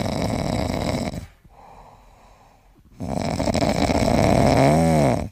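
Snoring: two long, loud rasping breaths with a quieter breath between them, the second ending in a pitched tone that rises and falls.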